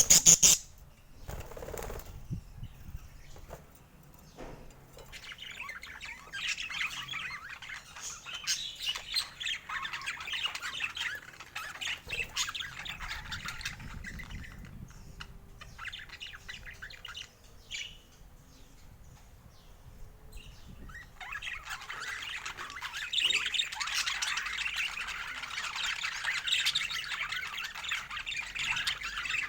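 Pet parakeet chattering and squawking in long, busy runs, one in the first half and a louder one from about two-thirds of the way through. A sharp knock sounds right at the start.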